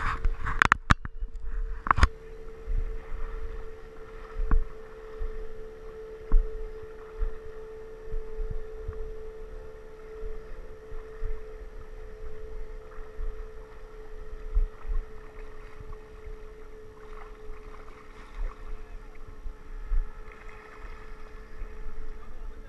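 A steady motor hum holding one pitch, sagging slightly near the end, under frequent low bumps and knocks on the microphone. Several sharp clicks sound in the first two seconds.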